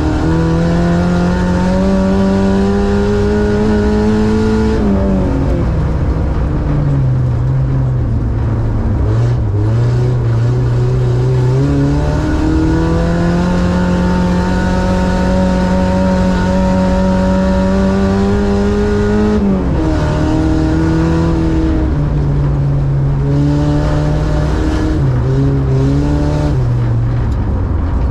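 Ice-racing car's engine heard from inside the cabin, pulling in long runs whose pitch climbs slowly and then drops sharply as it lifts off, about five seconds in and again about twenty seconds in. Near the end it gives a few quick ups and downs.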